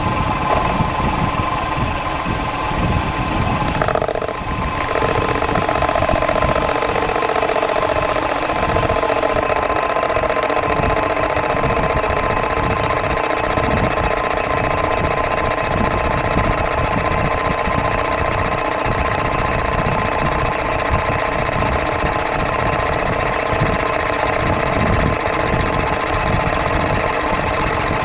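Metal lathe running steadily, its tool taking a light facing cut across a spinning bronze workpiece, with the scrape of the cut and the rattle of chips over the machine's hum.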